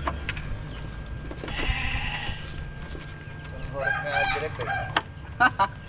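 A rooster crowing twice, once about two seconds in and again, louder, about four seconds in. Two sharp clicks come near the end.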